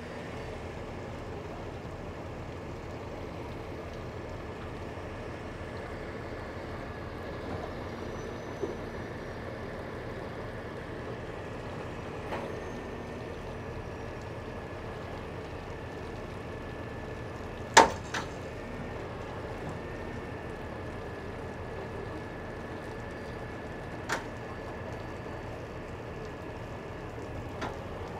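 Steady mechanical drone of a cable winch recovery hauling a half-sunk box truck up a concrete boat ramp, with a few sharp knocks, the loudest about two-thirds of the way through.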